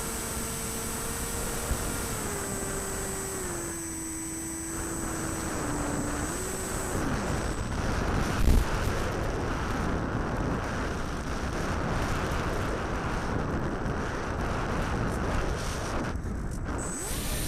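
RC model aircraft's motor whining and stepping down in pitch as the throttle is eased back, then cutting out about six seconds in. After that there is a steady rush of wind noise, with one sharp thump about halfway through.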